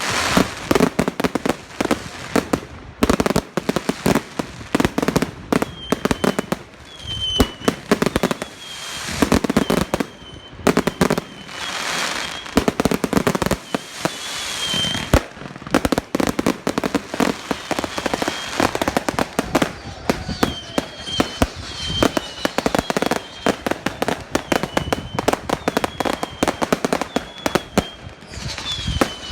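Fireworks going off in quick succession: sharp bangs and crackling bursts, with longer stretches of hissing crackle. From about six seconds in, a short high wavering tone recurs every second or so.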